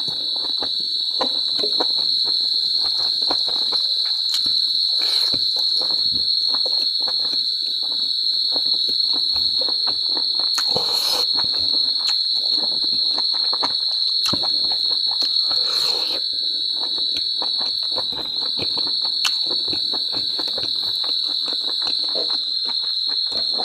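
Insects chirring in a steady high-pitched drone, with close-up chewing noises of a person eating: many small clicks and wet mouth sounds.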